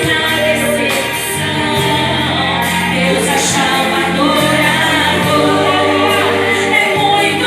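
Gospel song sung in Portuguese by two women over instrumental backing with long held bass notes.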